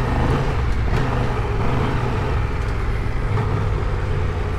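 Triumph Tiger 1200 Rally's three-cylinder engine running steadily while riding off-road, with wind and road noise underneath.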